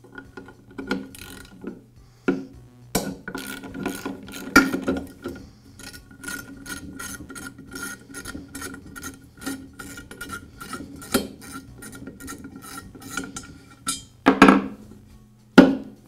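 Socket ratchet wrench clicking in quick, even strokes, about five clicks a second, as it turns the bolt holding the head stop on a tile saw's cast post. Near the end come two louder knocks.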